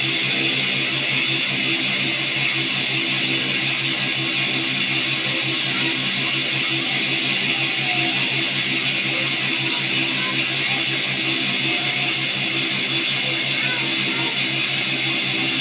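Cotton candy machine running steadily, its spinning head's motor giving an even hum with a constant whir, while spinning out sugar floss.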